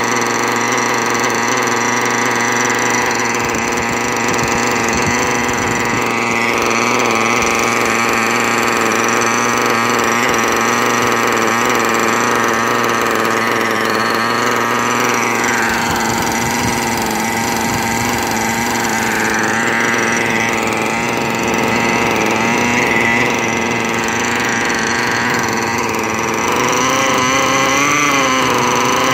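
Modified LRP .32 nitro two-stroke engine with a tuned pipe running steadily on a bench stand during break-in. Its pitch wavers briefly near the end.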